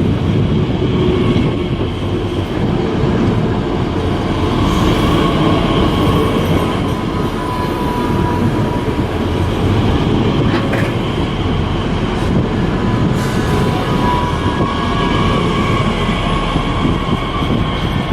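A train running: a steady, loud rumble of wheels on the track, with faint high thin tones over it.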